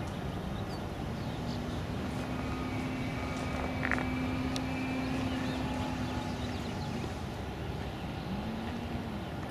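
Electric motor and propeller of a Phoenix Yak 54 RC aerobatic plane in flight: a steady tone held for several seconds, then a short rise and fall in pitch near the end as the throttle or the plane's path changes.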